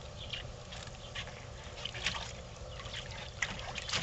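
Shallow water in a plastic wading pool trickling and splashing lightly as a toddler moves in it, with small irregular splashes that get busier near the end as he stands up.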